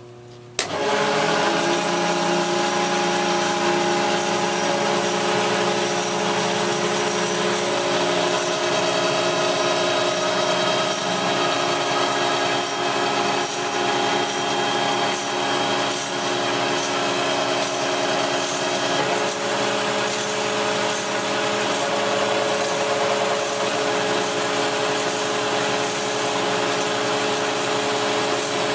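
Marvel 81A10 automatic-feed vertical bandsaw switching on abruptly about half a second in, then running steadily with its blade feeding down through a clamped workpiece: a steady hum of several tones over a hiss.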